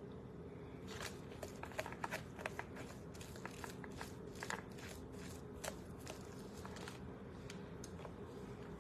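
Plastic fork shredding cooked chicken: a run of faint, irregular light clicks and scrapes over a steady low hum.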